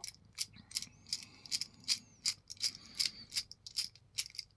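A steady run of light metallic clicks, about three a second, from a brass padlock and small tools being handled as the lock's disassembly begins.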